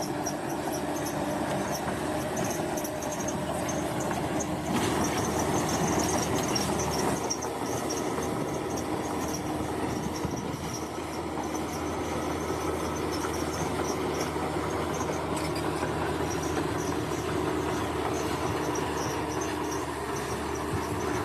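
Bulldozer engine running under load, its steel tracks grinding and squealing like a rail car. A little louder from about five to seven seconds in. Crickets or other insects chirp steadily behind it.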